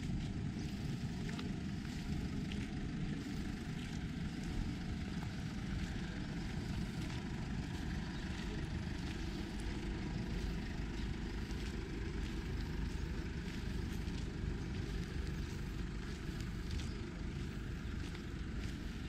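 Wind buffeting the microphone: a steady low rumble that flutters unevenly, with faint ticks scattered through it.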